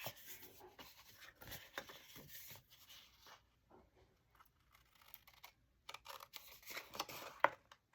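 Paper and cardstock being handled and worked at a craft table: short scratching and rustling sounds with a few light clicks, pausing for a couple of seconds in the middle.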